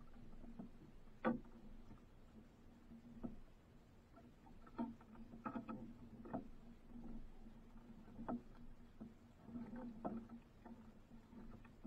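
Scattered light knocks and clicks aboard a small outrigger fishing boat, about a dozen of them, the sharpest about a second in, over a faint steady hum.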